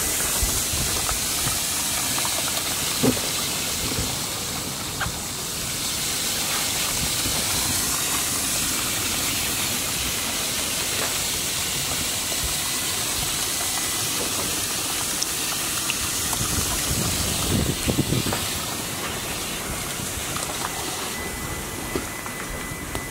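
Water jetting from a garden hose into a shallow plastic tub: a steady hiss and rush of running water, with a few short knocks. The hiss eases somewhat near the end.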